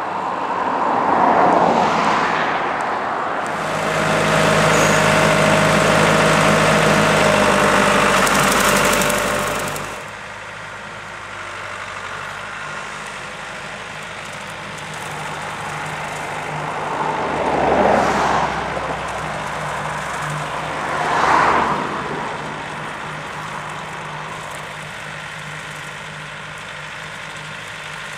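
Renault Ceres tractor's diesel engine running at steady working revs while it pulls a topper through rushes. The sound is loudest from about four to ten seconds in, then swells briefly twice more.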